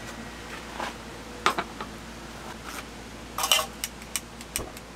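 Metal tongs clinking against a small grill pan and tabletop stove as meat is laid on it: a few sharp clinks, with a quick cluster about three and a half seconds in and a duller knock near the end, over a steady faint hiss.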